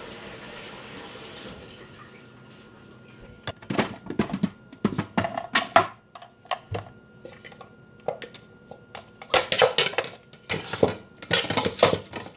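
Vital wheat gluten dough knocking and clattering in a plastic food processor bowl, in four short bursts of about a second each, starting a few seconds in.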